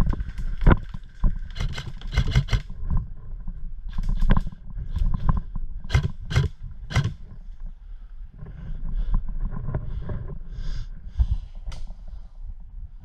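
Sharp cracks and knocks at irregular times, several in quick succession about two seconds in and again around six to seven seconds, over a steady low rumble of wind and handling noise on a body-worn camera.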